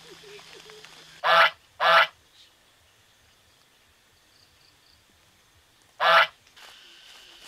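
A goose honking: two short, loud honks in quick succession about a second in, then a single honk about six seconds in.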